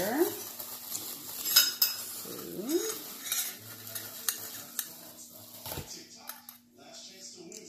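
Stainless steel three-piece cocktail shaker being handled, its metal parts clinking and tapping in scattered strikes, loudest about a second and a half in.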